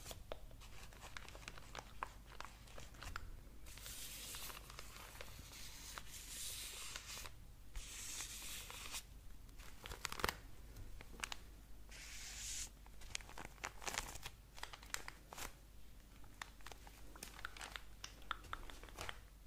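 Packaging being crinkled and torn open, in several stretches of rustling and tearing, with many small clicks and taps between them.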